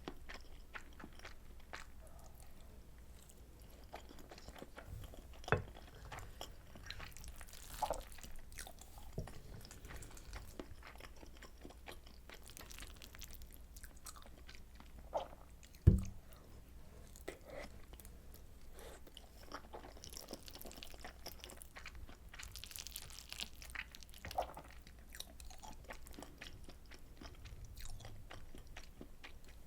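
Close-miked chewing and mouth sounds of someone eating soy sauce butter egg rice: many small wet clicks and smacks. A single sharp knock about halfway through.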